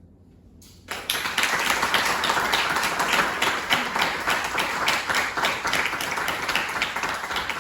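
Audience applauding, breaking out suddenly about a second in after a quiet pause and continuing as dense, rapid clapping.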